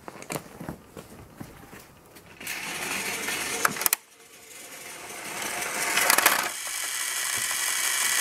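Plarail battery-powered toy train running on plastic track: a small motor whirring, with clicks from the wheels and rail joints, growing steadily louder. The sound breaks off abruptly about four seconds in and then builds up again.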